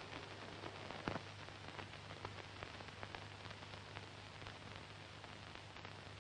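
Steady hiss and scattered crackle of an old 1950s film soundtrack, with a low steady hum underneath; one slightly louder click about a second in.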